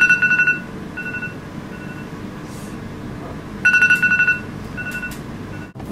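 Electronic timer alarm beeping: a quick run of rapid beeps, then two short single beeps, with the same pattern coming again about four seconds later. It signals that the cup noodles' waiting time is up.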